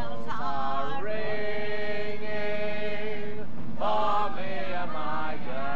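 Voices singing together in a chant-like tune, holding one long note for about two seconds, over the steady low rumble of the coach's engine.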